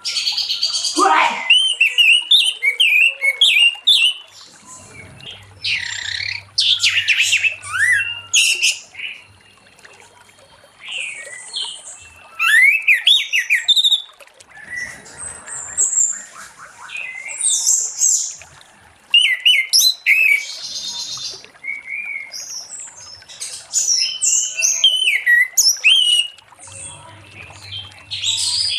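Orange-headed thrush singing a long, varied song of rapid whistled and chattering phrases, in bursts of a few seconds with short pauses between them.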